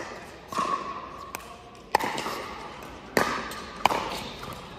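Pickleball rally: paddles hitting the hard plastic ball back and forth, about six sharp pops half a second to a second apart, each ringing on in a large indoor hall.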